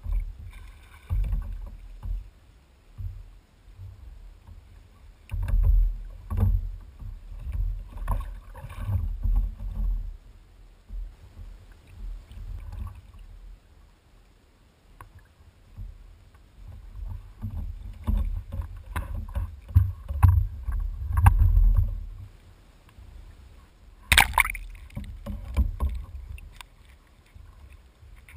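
Sea water sloshing and slapping against a kayak's hull, heard through a hull-mounted camera as irregular low rumbling surges with scattered knocks. One sharp, louder hit comes near the end.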